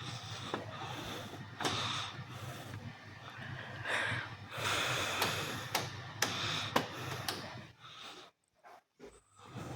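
Bauknecht WAS 1400 washing machine running: an irregular rushing, hissing noise with scattered clicks and knocks, stopping for about a second near the end.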